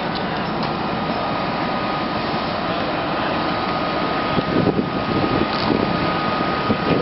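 Steady mechanical drone of a running engine with a faint, even high whine over it, and a few soft knocks in the second half as a canvas fire hose is dragged and dropped on pavement.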